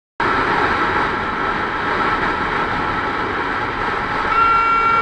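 Steady noise of a vehicle on the move, with a constant high whine running through it. About four seconds in, a sharper steady tone with overtones joins.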